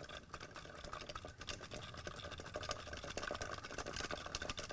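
Spinning reel being cranked steadily to wind braided line onto its spool: a fast, continuous run of light ticks and whirring from the turning rotor. The spool of braid turns on the rock as the line pays off.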